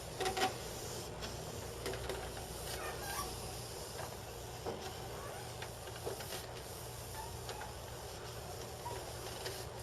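Faint rubbing and soft scraping of a decal wrap being smoothed by hand onto a model rocket body tube as the tube is turned, with scattered small ticks over a steady low hum.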